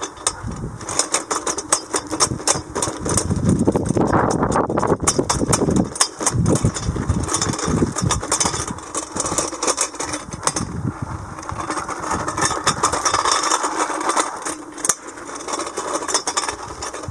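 Hoverboard-wheeled RC robot driving over a dirt and gravel track: hub motors running and wheels crunching and crackling over the stones, with the level rising and falling as it moves about.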